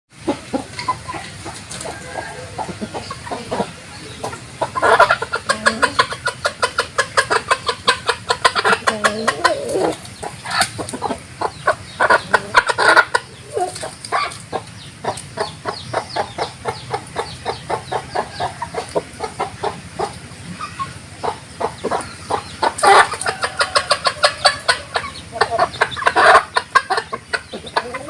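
Domestic chickens clucking in a rapid, continuous string of short calls, with louder bursts of clucking now and then.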